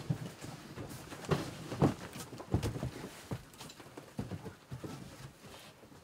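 Irregular knocks and scuffs of a person stepping and climbing onto a wooden pole framework, wood knocking under hands and feet, loudest in the first few seconds.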